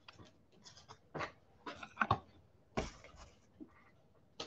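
Football trading cards being handled, a handful of short, soft scratchy slides and taps as cards are moved from one stack to another.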